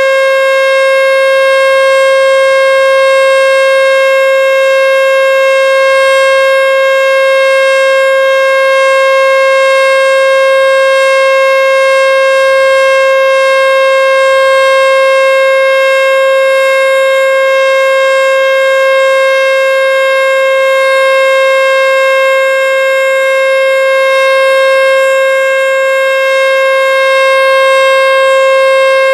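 American Signal Tempest T-121 outdoor warning siren sounding the steady Alert signal during its monthly test: one loud, unwavering tone with rich overtones, swelling slightly in loudness. The unit sounds in very healthy condition.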